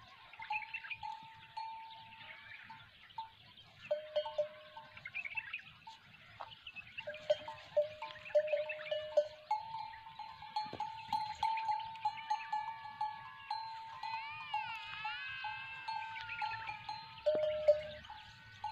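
Animal bells clinking irregularly at two pitches, a lower bell and a higher one, as grazing livestock move and feed. A wavering, bleat-like animal call comes in a little past the middle.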